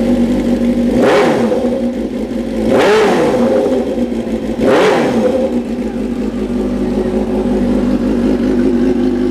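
2005 Suzuki GSX-R600 inline-four engine idling, revved in three quick throttle blips about two seconds apart, then settling back to a steady idle.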